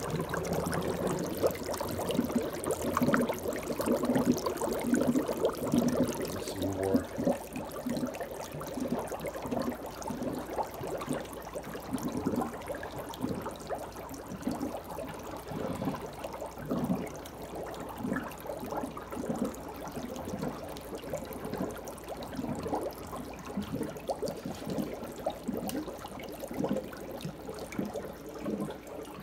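Water draining from a sink with the plug pulled, gurgling irregularly down the drain, several gurgles a second.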